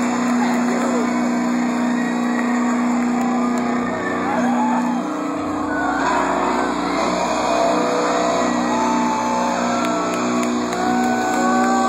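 Concert crowd screaming and cheering, many voices sliding up and down in pitch, over a steady held low note from the stage.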